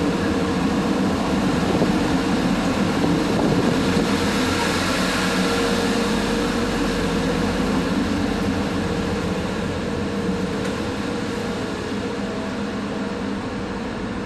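A passenger ferry's engine drones steadily under a rushing noise, heard on board while the boat is under way, and eases off slightly near the end.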